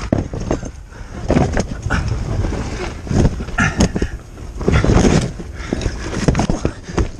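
Loose rocks knocking and clattering together, with scraping and rustling, as someone scrambles over a rubble slope in a mine passage. The knocks and scuffs come irregularly, several a second.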